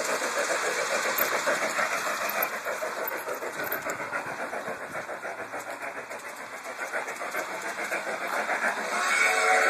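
Garden-scale model steam locomotive running on its track with a quick, steady chuffing rhythm that grows fainter in the middle and louder again. A whistle starts near the end.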